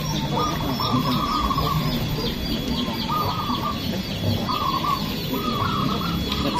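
Many caged zebra doves (perkutut) cooing at once, their short repeated coo phrases overlapping into a continuous chorus.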